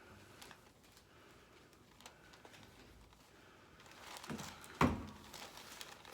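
A chiropractic adjustment: faint shuffling and movement, then a single sharp crack near the end, the loudest sound heard.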